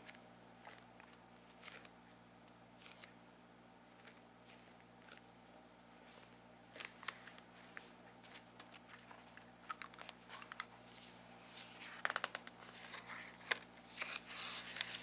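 Long fingernails tapping and scratching on the glossy paper cover of a ruled writing tablet: sparse light clicks at first, then denser tapping and paper crackling over the last few seconds as the cover is lifted.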